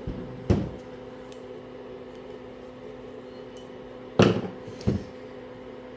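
Parts and hand tools being handled on a workbench during a power steering rack rebuild: three short knocks, the second two close together near the end, over a steady low hum.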